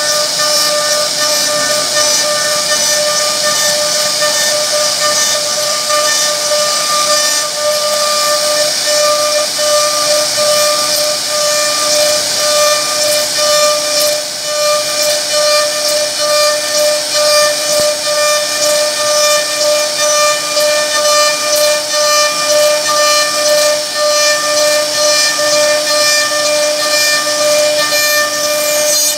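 CNC router spindle whining at one steady high pitch as its bit carves relief into a wooden board, over the hiss of the cut. The loudness wavers slightly as the bit moves through the wood.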